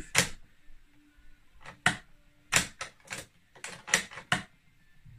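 Winchester Model 70 bolt-action rifle's three-position safety and bolt being worked by hand: about ten sharp clicks, some in quick pairs, the loudest right at the start.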